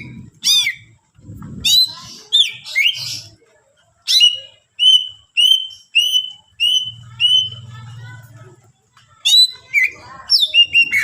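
Greater green leafbird (cucak ijo) singing loudly in sharp, down-slurred whistled notes: a steady run of about six identical notes at roughly two a second in the middle, then quicker, varied chattering phrases near the end.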